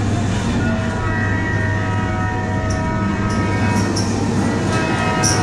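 Ghost train dark-ride car running along its track: a steady low rumble with several high tones held over it and a few short, sharp ticks.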